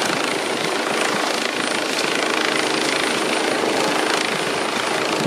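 Turbine helicopter hovering low overhead, its rotor and engine noise steady throughout.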